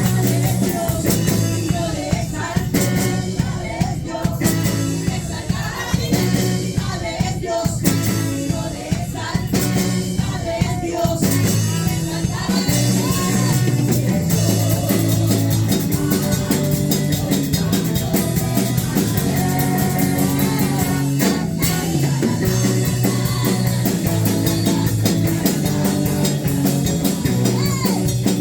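Live praise and worship band playing an upbeat song with drums, guitar and bass, with singing in parts.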